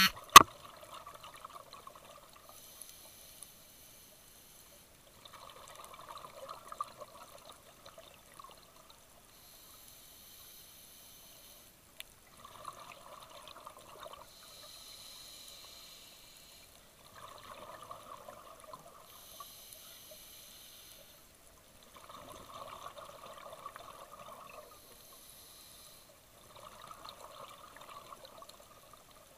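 Scuba diver breathing through a regulator underwater: bursts of exhaled bubbles every five seconds or so, each lasting a second or two, with a fainter hiss of the inhale between them. A sharp click just after the start is the loudest sound.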